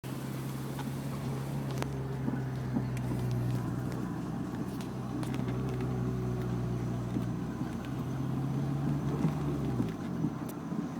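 Honda S2000 on the move: a steady low engine and drivetrain drone with scattered light clicks and rattles over it, the drone falling away about ten seconds in.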